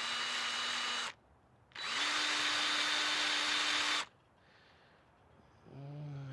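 Power drill spinning a wire wheel brush against chrome trim to strip off overspray, in two runs. The first stops about a second in; the second runs for about two seconds. A short grunt comes near the end.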